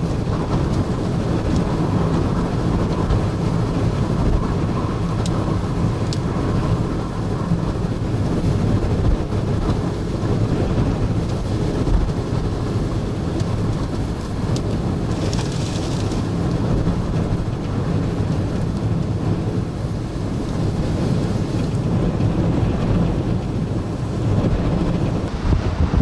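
Extreme wind buffeting the microphone: a steady, dense low rumble, with a brief higher hiss about halfway through.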